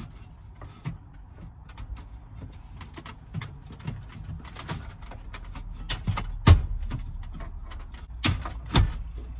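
Pioneer head unit's metal double-DIN mounting cage being pushed and worked into the dashboard opening: scattered clicks and knocks of metal against the plastic dash, with three sharper knocks in the second half, the loudest about six and a half seconds in.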